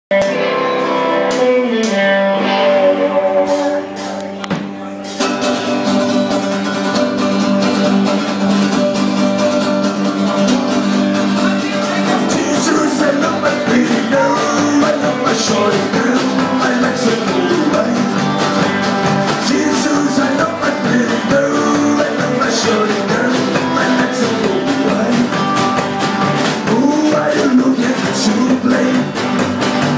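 Live band music from electric guitar, upright double bass and drum kit. Held chords ring for the first few seconds, then the band kicks into a steady beat about five seconds in.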